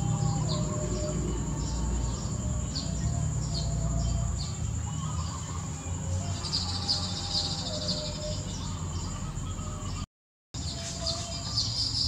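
Baya weavers chirping at their woven nest: short high chirps about twice a second, with a burst of dense chattering about halfway through and again near the end, over a steady high whine and a low rumble. The sound cuts out for half a second near the end.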